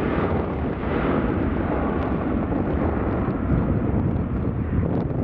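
Boeing 757 jet engines at takeoff power during departure: a loud, steady rumbling roar.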